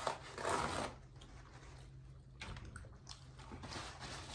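Close-miked eating: a crunchy bite lasting about half a second near the start, then quieter chewing with small mouth clicks.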